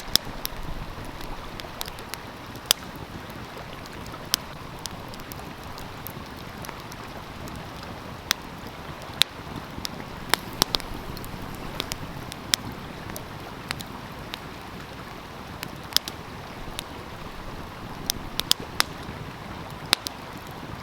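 A wood fire crackling, with sharp irregular pops, about one a second, over the steady rush of a flowing stream.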